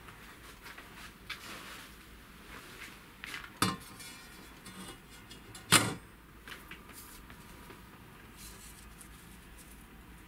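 Large steel circular saw blade set down on a wooden workbench: two loud clanks about two seconds apart, the first ringing briefly, among quieter handling sounds.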